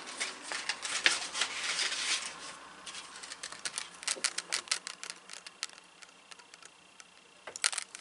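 A small mail package being unwrapped by hand, its wrapping crinkling and rustling with many quick clicks. The handling is busiest in the first few seconds and turns sparse after that.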